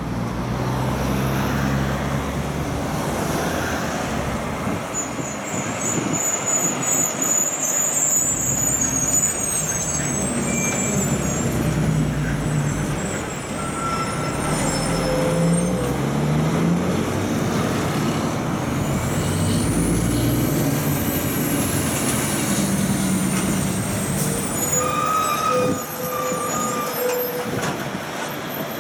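Heavy diesel trucks driving past close by, their engines rising in pitch in steps as they pull away through the gears. In the second half a high whine rises and then slowly falls.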